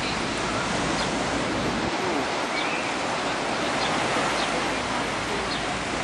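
Ocean surf breaking and washing up onto a sandy beach: a steady rushing hiss of the shore break.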